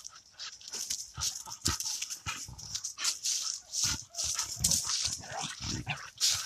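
Footsteps crunching and rustling through dry fallen leaves, in short irregular bursts with low thumps.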